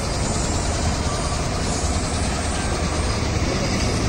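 Ashok Leyland heavy truck's diesel engine idling with a steady low rumble.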